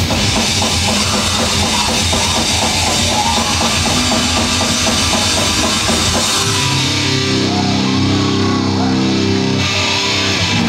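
Heavy metal band playing live: fast drumming under distorted electric guitar and bass. About six seconds in the drumming stops and a long held chord rings on, closing the song.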